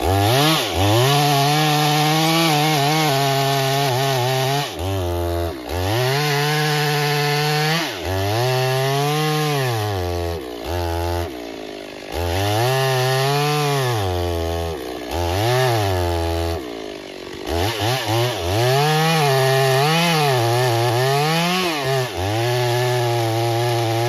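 Two-stroke chainsaw cutting into the base of a thick tree trunk at full throttle, its engine note sagging and climbing back again and again as the bar bogs in the wood and is eased through the cut.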